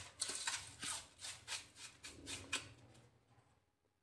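A metal spoon scraping against a stainless steel bowl, stirring a grainy mix of powdered sugar and oil in quick, even strokes, about four a second. The strokes fade out about three seconds in.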